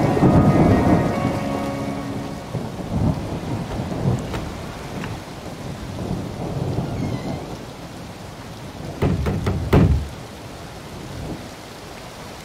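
Steady rain with rumbles of thunder that die down after the first couple of seconds, then a quick run of sharp knocks about nine seconds in.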